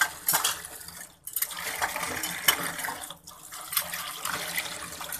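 Tap water running and splashing into a stainless-steel sink while a long-handled ladle is rinsed under the stream, with a few brief knocks of the utensil. The splashing cuts off briefly twice.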